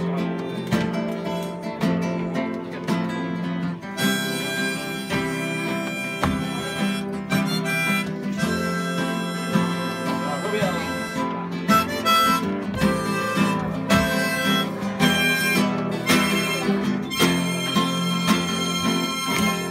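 Acoustic guitar strummed in a steady rhythm, joined about four seconds in by a harmonica playing a melody over it.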